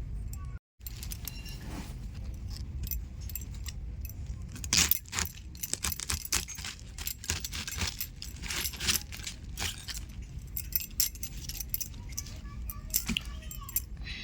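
Cabbage being cut with a blade: a long run of quick, sharp cutting clicks with light metallic clinks, busiest in the middle.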